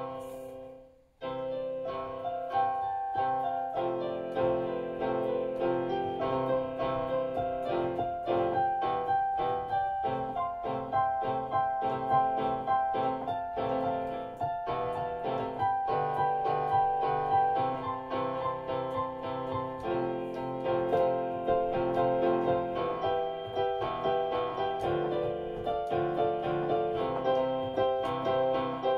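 Piano being played: a melody over chords, broken by a brief pause about a second in.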